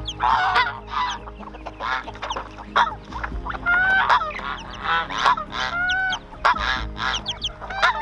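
A flock of white domestic geese honking over and over, the calls overlapping, with short high chirps from smaller birds among them.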